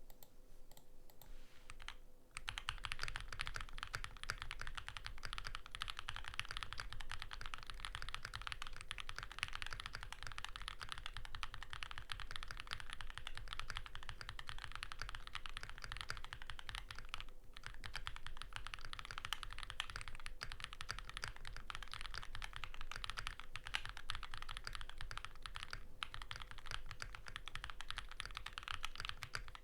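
Fast, continuous typing on a Neo65 custom mechanical keyboard with lubed Vertex V1 switches, a POM plate and GMK Rudy R2 keycaps: a dense stream of key clacks that starts about two seconds in, with one short pause around the middle.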